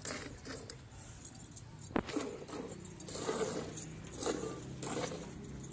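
Hand milking into a steel pail: a rhythmic run of squirts of milk hissing into the milk in the pail, with metal and glass bangles on the milker's wrists jingling at each pull and one sharp clink about two seconds in.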